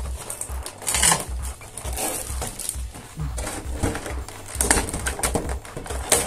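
Plastic packaging and figure parts being handled: irregular rustling, crackling and clicking, over a steady low pulsing beat.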